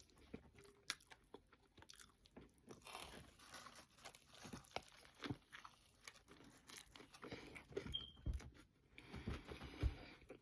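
A person chewing a bite of burger with lettuce and onions: faint crunching with scattered small mouth clicks.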